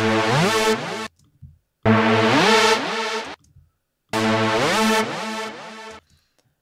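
Serum software synthesizer playing a buzzy techno lead in a looping phrase that repeats about every two seconds with short silent gaps. Each phrase holds a note and then slides upward in pitch on the synth's glide.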